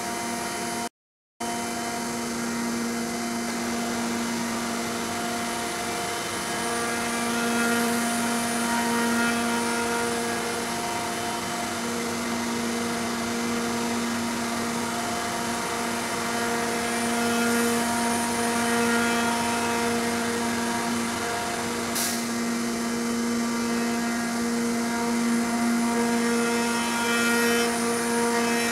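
Techno HDS CNC router's spindle whining steadily while a 2.5-inch fly cutter resurfaces the spoilboard, its tone swelling louder and easing back several times as the cutter travels across the board. The sound drops out completely for a moment about a second in, and a single sharp click comes about 22 seconds in.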